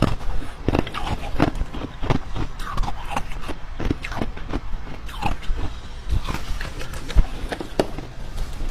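Close-miked eating sounds: irregular crunching, biting and chewing with small mouth noises between bites.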